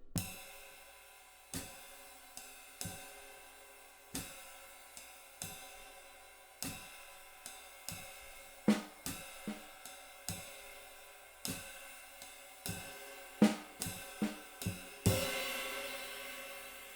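Riveted ride cymbal with two rivets played in a slow swing pattern: a stroke about every 1.3 s with lighter skip notes, its rivet sizzle sustaining between strokes so each quarter note rings long. A few drum hits fall in among the strokes, and a louder cymbal stroke near the end rings on.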